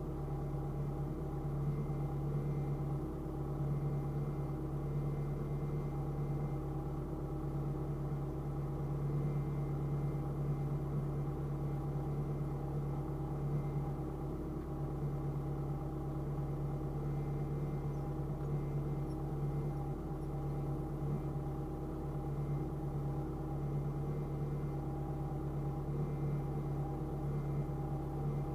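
Steady, even hum inside a car idling at a standstill in traffic, a constant drone with no revving or sudden sounds.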